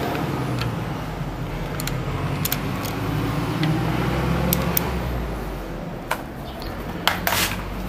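A steady low drone, with scattered sharp metallic clicks from a bar and socket being worked on the front pulley of a bare diesel engine on a stand as it is turned over by hand.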